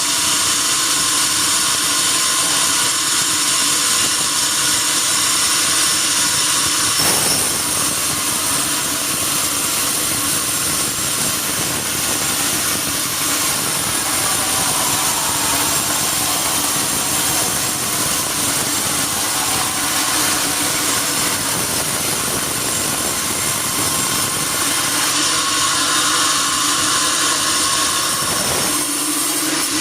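Sawmill bandsaw running with a steady, loud mechanical noise. About seven seconds in the sound fills out lower, and it thins again near the end.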